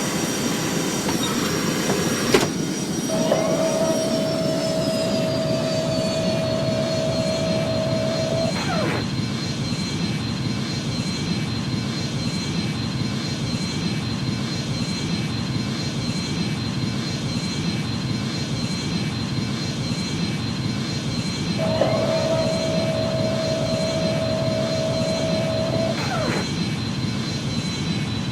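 Boeing 737 jet engines running, a steady rush with a high whine that drops in pitch about four seconds in and then holds. Twice, a steady mid-pitched tone sounds for about five seconds, starting and stopping with a click.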